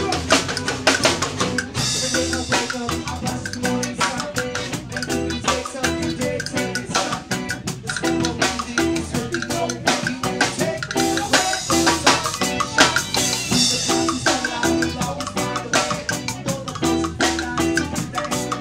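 Live band playing: drum kit with cymbals, electric guitar and bass. Heavy cymbal wash about two seconds in and again from about eleven to fourteen seconds.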